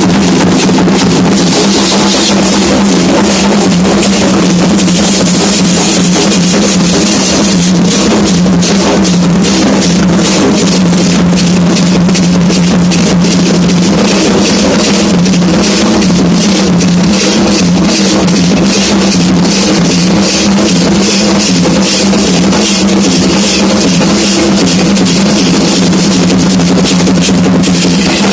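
Candomblé atabaque drums playing a loud, continuous rhythm of dense, rapid strokes.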